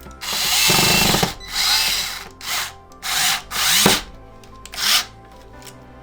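Electric screwdriver driving screws back into an Xbox One X during reassembly, running in about six short bursts, the first about a second long and the rest briefer.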